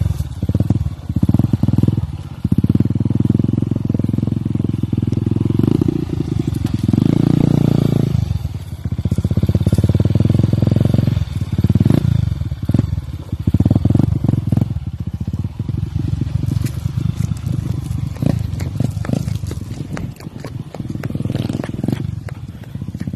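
Motorcycle engine running at low speed on a rough dirt trail, its level swelling and dipping repeatedly with the throttle.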